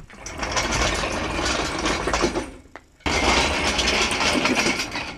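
Steel engine crane rolled on its casters across a rough concrete driveway, in two pushes of about two and a half seconds each. The first push builds up gradually and the second starts abruptly.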